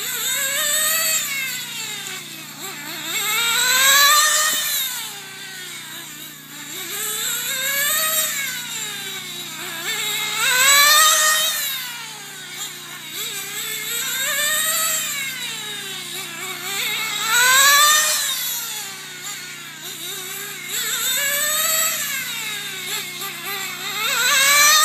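Small nitro engine of a 1/10-scale RC sprint car running at high revs as it laps an oval, its whine rising and falling in pitch and loudness every three to four seconds, lap after lap.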